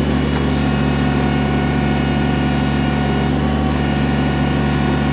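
Kubota BX23S compact tractor's small three-cylinder diesel engine running steadily at raised throttle while its backhoe works.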